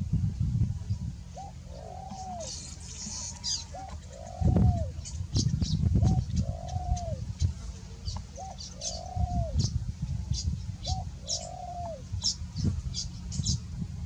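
A dove cooing over and over: a short note followed by a longer coo that rises and falls, repeating about every two seconds. Small birds chirp in quick, high notes throughout, over a low steady rumble.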